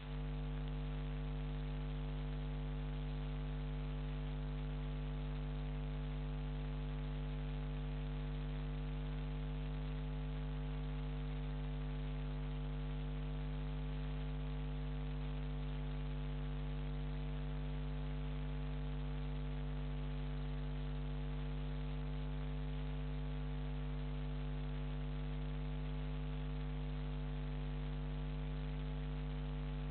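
Steady electrical mains hum: a low, unchanging buzz with a stack of even overtones over a faint hiss.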